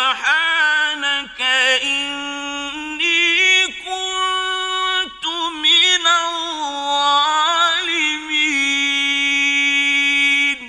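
Male Quran reciter's voice in mujawwad-style recitation: a long melodic line of held, ornamented notes, broken by a few short breaths, ending near the end in an echoing fade.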